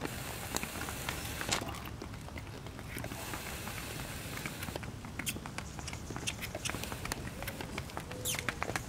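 Hooves of a miniature horse trotting on asphalt while pulling a light cart: a run of quick, irregular clicks.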